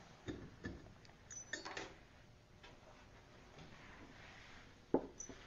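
Faint clicks and light knocks of metal small-engine parts being handled on a workbench, with one sharper knock near the end.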